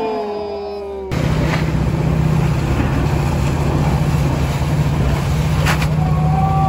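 A vehicle engine running with a steady drone as it pulls up a steep climb, with one short sharp knock about six seconds in. In the first second, a few drawn-out tones slide slowly down in pitch before the sound cuts to the engine.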